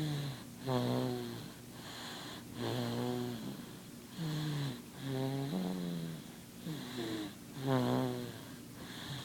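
Baby snoring in her sleep: a pitched snore on each breath, repeating about every one to two seconds.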